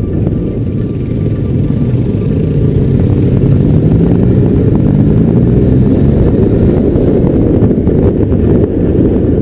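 Honda XRV750 Africa Twin's V-twin engine heard on board while riding, its pitch rising and falling as the throttle is opened and eased, over a heavy low rumble of wind and gravel.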